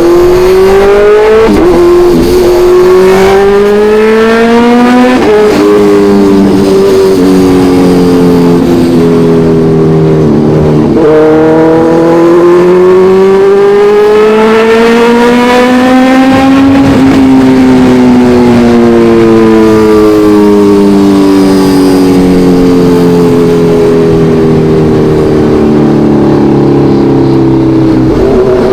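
Kawasaki Ninja 1100SX inline-four engine pulling hard through the gears. The pitch climbs and drops sharply at each upshift, about a second and a half in, again near five seconds and near eleven seconds. From about seventeen seconds the pitch falls slowly and steadily as the bike slows.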